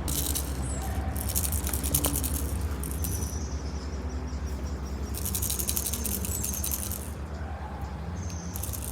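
A fast, high-pitched rattling buzz comes in several bouts of one to two seconds, over a steady low rumble.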